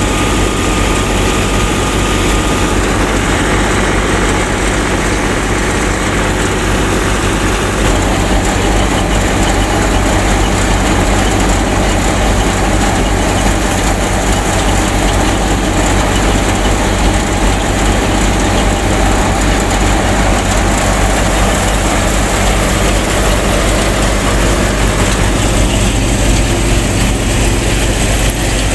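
Miniature wheat thresher running steadily while threshing wheat, its belt-driven drum and motor giving a constant low hum under a dense mechanical noise.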